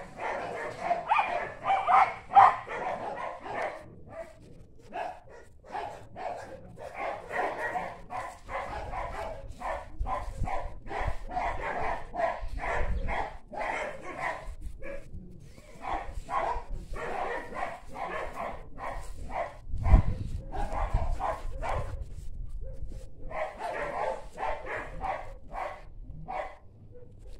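A dog barking over and over in runs of quick barks, with short pauses between runs. A low thump about two-thirds of the way through.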